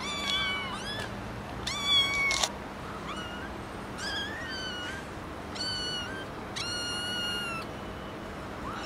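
Kittens mewing: about seven high-pitched mews in a row, the loudest about two seconds in and the last one longer and held level.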